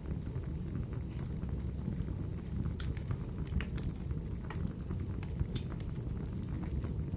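Wood fire crackling: a steady low rumble of flames under irregular sharp crackles and pops.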